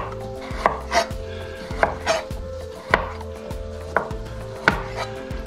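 Chef's knife cutting the hard skin off a celery root and knocking on a cutting board: about seven sharp knocks at uneven spacing over a steady low hum.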